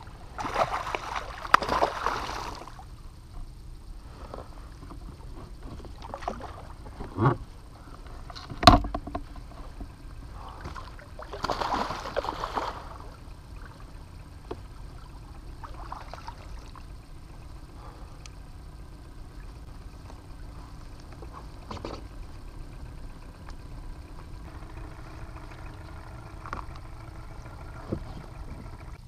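A hooked dentex thrashing and splashing at the water's surface in two bursts, near the start and again around twelve seconds in as it is brought into the landing net, with a single sharp knock between them.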